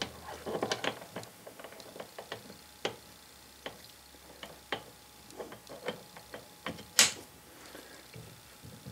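Steel jaw of a three-jaw scroll chuck being slid into its slot while the scroll is turned by hand to catch it: a string of irregular light metal clicks and scrapes, with one louder click about seven seconds in.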